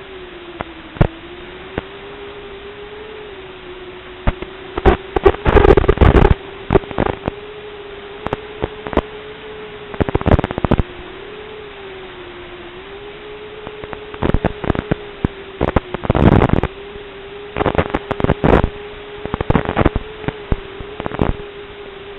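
Hiss and a steady, slightly wavering hum from the audio channel of an analog FPV video receiver, recorded by the goggles' DVR. Several clusters of loud crackles and clicks break in, the kind of noise typical of a weak, breaking-up video signal.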